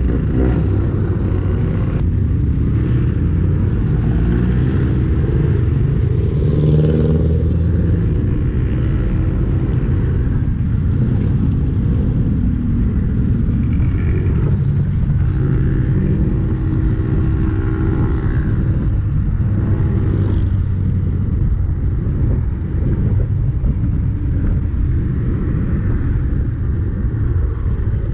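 Road traffic heard from a moving bicycle: engines of passing cars, jeepneys and motorcycles over a steady low rumble of wind on the microphone and tyres on the road. Engine hum swells about seven seconds in and again around sixteen to nineteen seconds.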